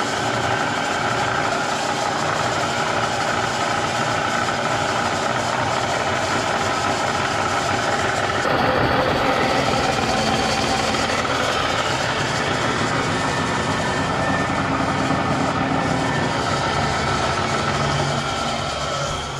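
Bridgeport Series 1 2 HP Vari-Speed milling head running with a steady, loud mechanical racket of rattling and rubbing from inside the head. The owner believes the fault lies in the upper variable-speed pulley and belt drive, not in the spindle bearings or the bull gear.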